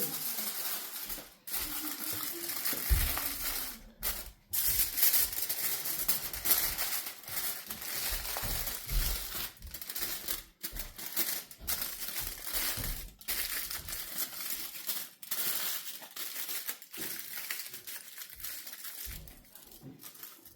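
Aluminium foil crinkling and crackling as it is handled and wrapped tightly around a tortilla wrap, in irregular bursts with brief pauses, growing quieter near the end.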